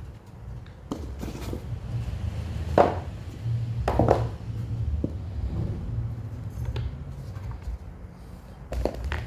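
Unboxing handling noise: the tablet's accessories and cardboard packaging being taken out and set down, giving a few light knocks and taps over a low steady hum.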